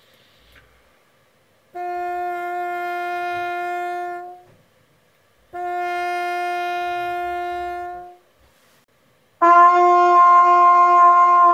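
Two long trumpet notes on the same pitch, played with a mute, each trailing off gently at the end as the air is simply stopped instead of the note being cut off with the tongue. Near the end comes a third, louder note on the same pitch, played by the student and heard through the video-call connection with its top end cut off.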